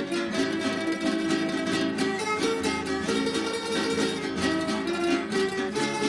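A Venezuelan estudiantina, a plucked-string ensemble of bandolas, mandolins and guitars, playing a piece together with many quick picked melody notes over the accompaniment.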